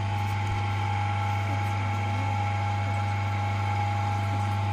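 Motorised potter's wheel running with a steady low hum.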